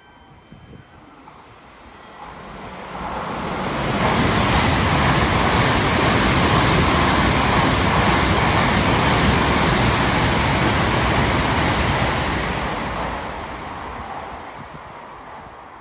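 Tokaido Shinkansen bullet train passing through a station at its reduced 200 km/h limit: a rushing noise of wheels and air that builds over a couple of seconds, stays loud for about eight seconds as the cars go by, then fades.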